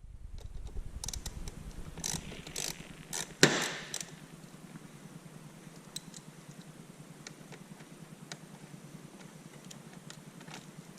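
Top engine cover of a Cadillac STS's 3.6-litre V6 being unfastened and taken off by hand: a few sharp clicks and knocks in the first few seconds, the loudest about three and a half seconds in, then only faint ticks.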